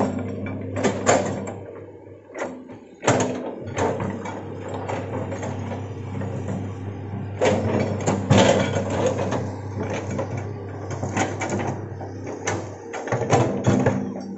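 Hitachi hydraulic excavator at work: its diesel engine runs steadily under a string of clanks and knocks from the bucket and arm as it digs, swings and dumps soil.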